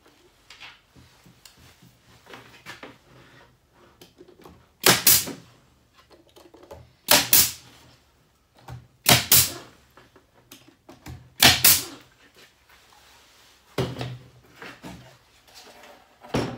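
Pneumatic brad nailer shooting 2-inch wire brads into wooden boards, about six sharp shots roughly two seconds apart, with light knocks of the wood being handled between them.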